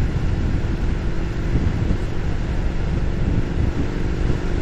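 Wind rushing over the microphone of a moving Harley-Davidson Street Rod, with the bike's V-twin engine running steadily underneath.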